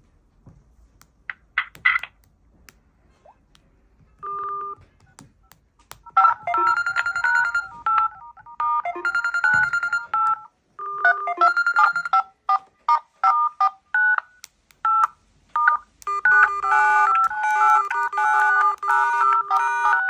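Mobile phone ringtone: a single short electronic tone about four seconds in, then from about six seconds a melody of electronic notes played in repeating phrases, getting busier near the end.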